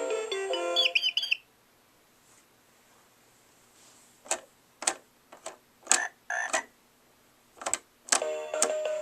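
Mattel See 'n Say Baby electronic animal toy playing a short tune through its small speaker, which ends with a chirpy sound effect about a second and a half in. After a pause it gives a series of about eight short frog croaks, and near the end another melody starts.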